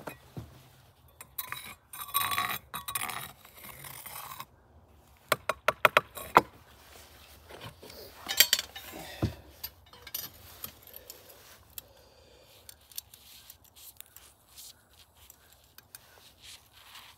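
Pieces of aluminum scrap clinking and scraping as they are handled. There is a scraping stretch early on, then a quick run of sharp clinks about five to six seconds in and scattered clinks after.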